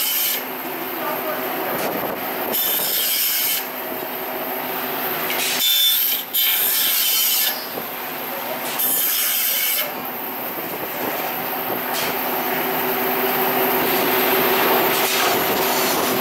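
Vertical metal band saw cutting through a multi-layer scrap copper-tube air-conditioner radiator to split it into single layers. A harsh grating rasp swells and eases in stretches of one to two seconds over the steady hum of the saw's motor.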